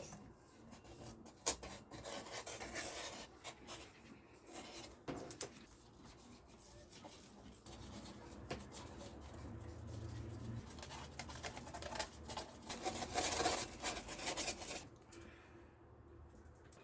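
Intermittent rubbing and scraping of hand work, with scattered light clicks and knocks; the longest, loudest stretch of scraping comes in the second half.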